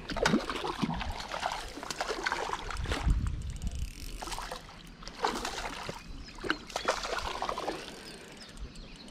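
A hooked trout thrashing at the water's surface close to the bank, splashing and sloshing in irregular bursts.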